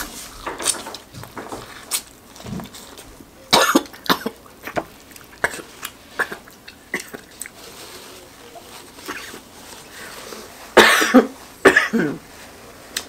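A woman coughing in short fits, a couple of coughs about three and a half seconds in and a louder cluster of three or four about eleven seconds in, the later ones into a napkin. Small wet mouth and eating clicks come in between.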